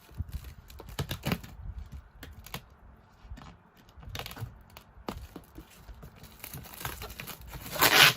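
Scattered light clicks and crinkling as packaging and computer parts are handled, with a louder rustling rush near the end.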